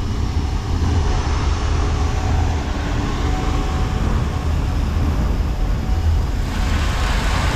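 Combine harvester running steadily while threshing oats, a low rumble with a hiss over it that grows brighter near the end.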